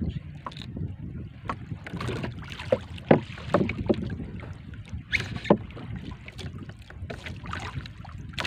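Water lapping and slapping against the hull of a small outrigger boat, with wind on the microphone and a few sharp knocks and splashes in the middle.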